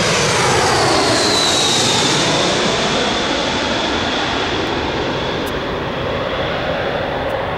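Airbus A320 jet engines passing by on final approach: a loud jet roar with a high whine that falls in pitch over the first couple of seconds as the aircraft moves away, then slowly fades.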